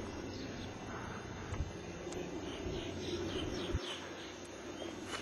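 Outdoor background noise, a steady even haze, with a few faint short high chirps about halfway through.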